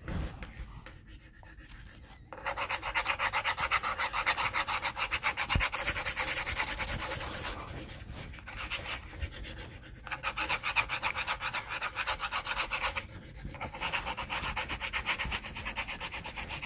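Colouring in on paper: a drawing tool scribbled rapidly back and forth, a steady scratchy rubbing. It starts about two seconds in, with a few brief pauses.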